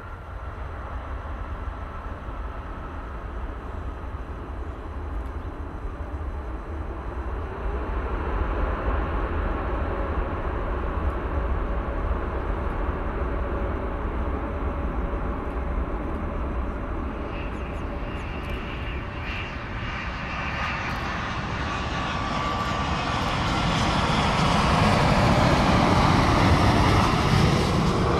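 Jet airliner engines: a steady distant rumble that builds over the second half, with a rising high whine. It is loudest just before the end, as a wide-body jet passes close.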